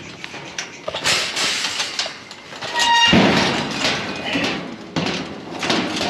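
Metal livestock gate and wire pen panels clanking and rattling as a goat is moved into the scale pen: sharp knocks in the first second, a brief ringing clang near three seconds, then a louder spell of rattling.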